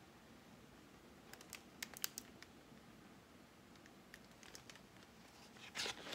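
Near-silent room with a few faint clicks and taps from handling a large picture book, then a paper rustle of a page being turned near the end.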